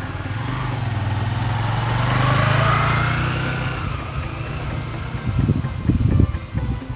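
A motor vehicle engine running, growing louder to a peak about halfway through and then fading, as if passing by, followed by a few heavy knocks near the end.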